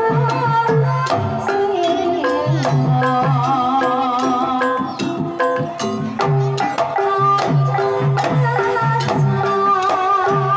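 Banyumasan gamelan playing a tayub piece: kendang drum strokes over the ringing of saron and bonang metallophones and gongs. A woman sinden's sung line wavers with vibrato at times.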